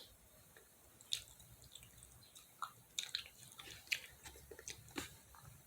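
Fried chicken being chewed close to the microphone: short, faint crunches and clicks, few at first and coming more often from about three seconds in.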